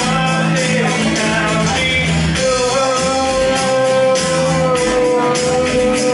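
Live acoustic guitar strumming a steady rhythm while a man sings; from about two and a half seconds in, one long note is held.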